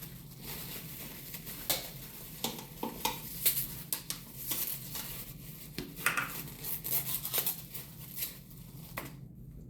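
Cutlery clicking and scraping against a dish while someone eats: scattered light taps and clinks.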